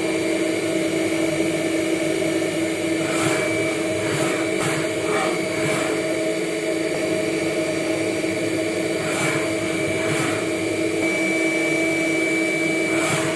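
CNC vertical milling machine running, a steady machine whine with a few short noisy bursts scattered through it.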